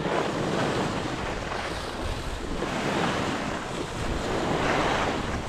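Skiing downhill: skis hissing and scraping over packed snow, with wind rushing over the microphone, the noise swelling and easing two or three times.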